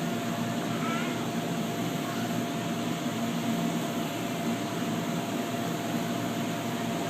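Bumper boat motor running with a steady, even hum.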